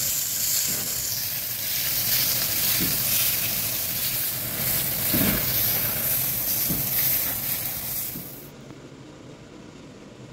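Veal steak sizzling loudly on a hot ridged cast-iron grill pan. The sizzle cuts off about eight and a half seconds in, leaving only a faint steady hiss.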